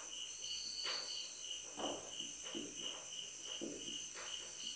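Marker pen squeaking and scratching on a whiteboard in short, irregular strokes, over a steady high chirping that repeats evenly several times a second.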